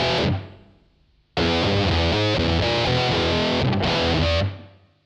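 Background music led by a distorted electric guitar. It fades out about half a second in, cuts back in sharply after about a second, and fades out again near the end.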